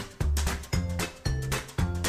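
Background music with a steady beat, about two beats a second, over a repeating bass line.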